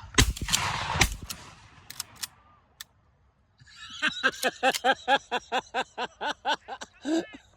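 Two shotgun shots about a second apart, each with a short rolling echo, fired at doves. A few seconds later a voice makes a quick string of short repeated sounds, about four a second.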